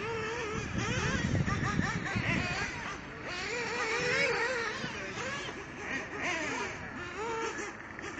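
Radio-controlled off-road buggy's motor whining, its pitch rising and falling again and again as the throttle is worked around the track. A low rumble joins in between about one and two seconds in.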